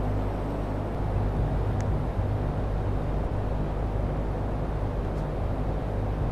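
Air conditioner running steadily: an even rush of air over a low machine hum.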